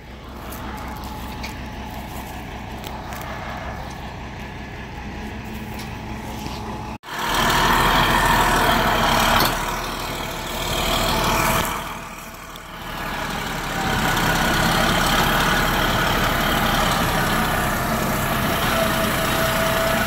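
Heavy diesel engine idling steadily, fainter at first, then loud and close after an abrupt break about seven seconds in.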